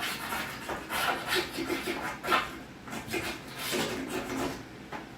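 Stainless steel caulking tool scraping and rubbing along a caulk joint in short, irregular strokes, a few a second, as old caulk is worked out.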